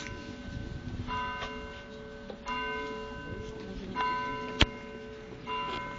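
Church bells ringing: a smaller bell is struck about every second and a half, each strike ringing on with several clear tones over the steady hum of a larger, lower bell. A sharp knock sounds a little past halfway.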